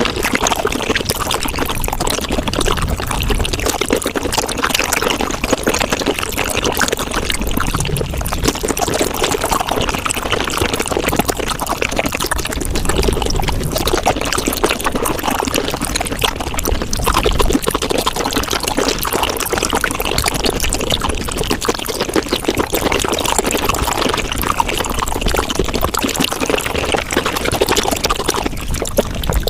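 Close-miked eating of raw shrimp sped up five times: a dense, unbroken stream of wet chewing, smacking and slurping clicks.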